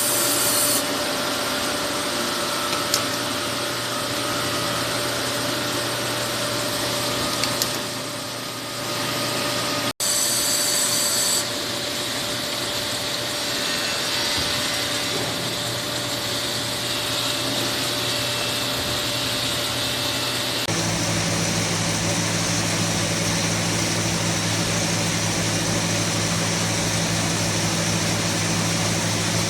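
Factory machinery running steadily, a continuous mechanical drone with a steady hum and a high hiss. The sound changes abruptly about ten seconds in and again about twenty seconds in.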